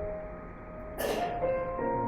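Slow live instrumental music with long held notes that fade, and a short noisy swish about a second in before new notes begin.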